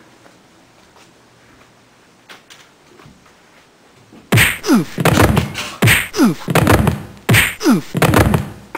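Loud banging on a window pane from outside, starting about four seconds in, in three rounds about a second and a half apart, each a quick run of thuds.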